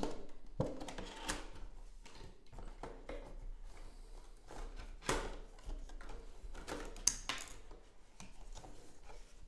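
Cardboard headphone box being opened by hand: the lid and flaps scraping, rubbing and tapping in irregular bursts, with sharper knocks about five seconds in and again near seven seconds.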